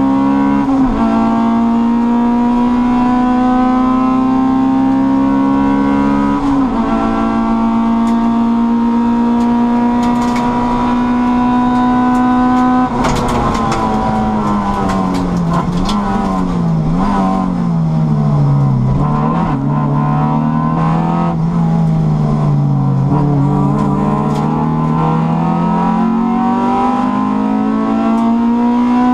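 Racing Honda Civic's four-cylinder engine heard from inside the cabin, held at high revs under full throttle with quick gear shifts about one and six seconds in. About halfway through, the revs fall sharply and rise and fall at a lower pitch through braking and a corner, with some crackling, then climb again near the end.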